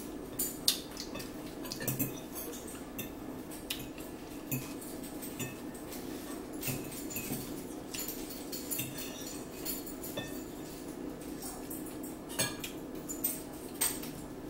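Metal forks clinking and scraping against plates and bowls in irregular taps, the sharpest clink just under a second in, over a steady low hum.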